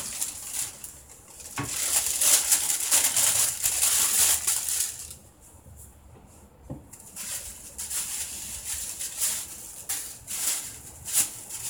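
Thin white wrapping paper rustling and crinkling as it is pulled off a small wooden butsudan, loudest over the first few seconds and then in shorter intermittent rustles, with a couple of light knocks.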